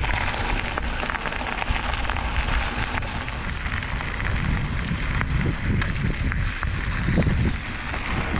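Wind buffeting the camera's microphone while on the move: a steady rushing with gusty low rumbles and faint scattered ticks.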